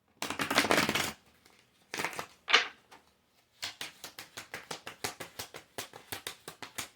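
Tarot cards being shuffled: a short papery rustle and two quick swishes, then a fast run of card flicks at about six a second as the deck is worked through the hands.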